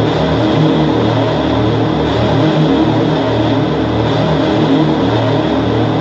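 Harsh noise music: a loud, unbroken wall of dense electronic noise, with a low layer pulsing underneath in uneven blocks.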